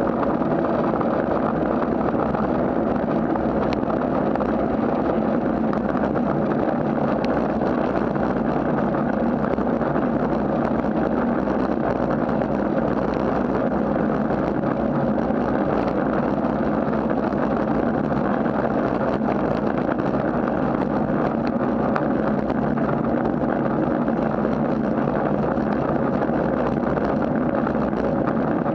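Steady rushing noise of a bicycle rolling along wet asphalt: wind buffeting the camera microphone mixed with tyre hiss on the wet road surface, even in level throughout.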